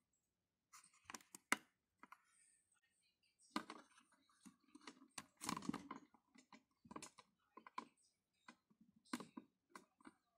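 Faint, scattered light clicks and knocks, with a slightly denser cluster about halfway through.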